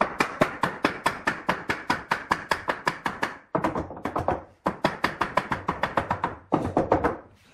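Wooden mallet knocking on a glued pine frame corner joint to drive it closed: quick, even knocks about six a second, in several runs with short pauses between.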